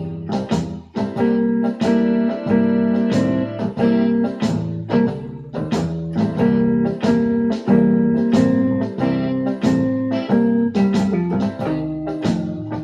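Electronic keyboard playing blues: steady sustained chords low down with notes struck in a regular rhythm on top.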